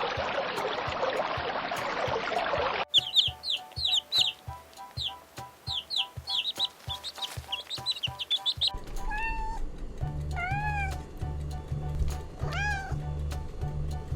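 Animal calls over background music: first a rushing noise, then a quick run of short, high, falling chirps, then three drawn-out calls that rise and fall in pitch, over a steady beat.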